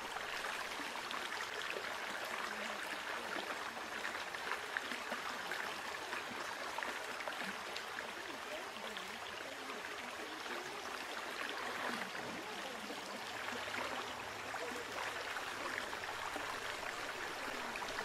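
A stream running steadily, an even rush of flowing water.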